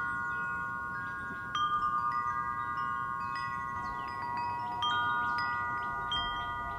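Metal tube wind chime ringing, its clapper striking the tubes now and then so that several long, clear tones overlap and fade slowly. Fresh strikes come about one and a half seconds in and again near five seconds.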